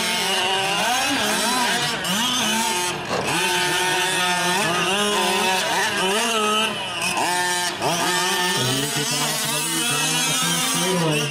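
Several 1/5-scale gas RC trucks' small two-stroke engines racing, overlapping, each rising and falling in pitch as the throttle comes on and off.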